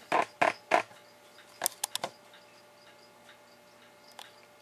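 A few sharp taps and clicks of handling: three quick taps in the first second, a cluster of light clicks about two seconds in, and one more near the end.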